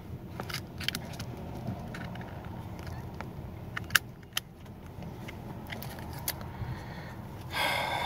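A screwdriver prying at the crimped metal cover of a push-button combination lock: scattered sharp metallic clicks and light scraping, the loudest click about four seconds in, over a low steady hum. Near the end a louder rasping noise sets in.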